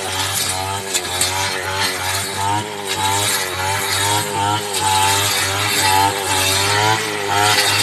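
Brush cutter engine running at high speed, its pitch dipping and rising about once a second as the cutting head is swung through tall grass.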